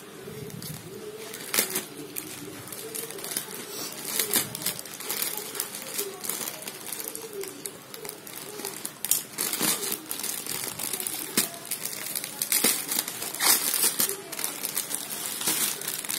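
Plastic courier mailer bag crinkling as it is cut open with scissors and its contents are pulled out: irregular sharp crackles and rustles, busiest in the second half.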